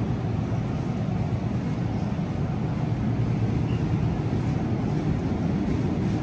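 Steady low rumble of supermarket background noise along the refrigerated display cases, even in level throughout.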